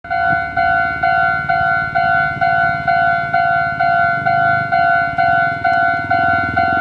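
Japanese level-crossing warning bell ringing at about two strikes a second, a clear ringing tone repeated evenly, warning that a train is approaching. A low rumble runs underneath.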